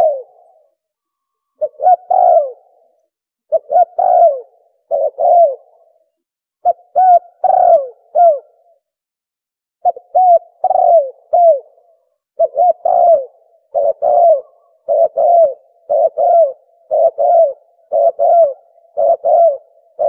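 Spotted dove (tekukur) cooing: phrases of two or three short coos, repeated over and over. They come about every two seconds at first, then, after a brief pause near the middle, about once a second.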